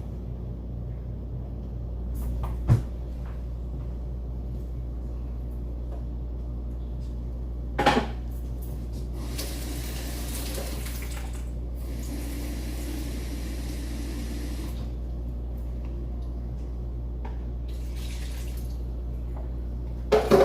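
Kitchen clean-up sounds: a sharp knock and a clatter of dishes, then water running from a tap for a couple of seconds at a time, twice, over a steady low hum.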